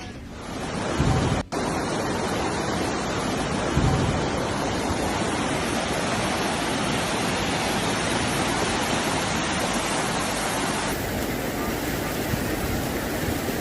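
Steady, loud rushing of water, as from floodwater or a torrential downpour, dropping out for an instant about a second and a half in.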